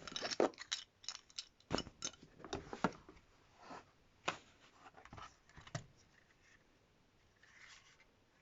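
Unboxing handling of packaging and a handheld cable finder: irregular clicks, taps and short rustles, busy at first and dying away, with a faint rustle near the end.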